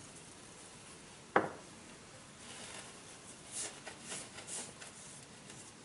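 A single sharp knock about a second in. It is followed by several soft rubbing strokes as a cloth rag wipes boiled linseed oil onto a wooden hand-plane tote.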